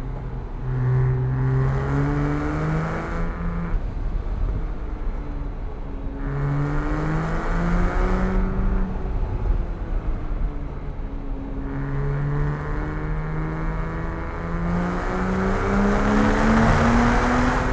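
Porsche 987.1 Cayman S flat-six engine pulling hard through a run of curves: three times the revs climb under acceleration and then fall away as the driver lifts off, over steady road noise.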